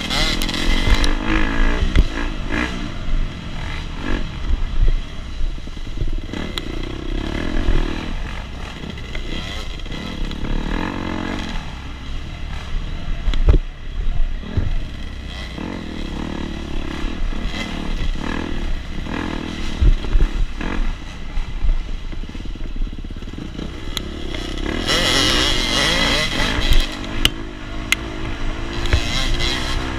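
KTM 250 SX two-stroke dirt bike racing off-road, its engine revving up and falling back again and again, with a few sharp knocks and clatter along the way.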